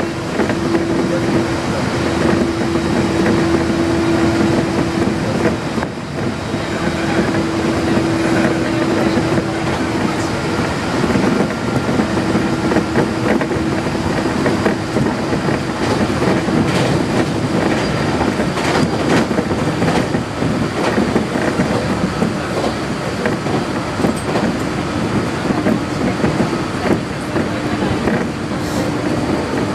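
Aoimori Railway electric train running at speed, heard from inside the car: a steady rumble of wheels on rail with a hum that comes and goes. A run of rail-joint clicks comes around the middle.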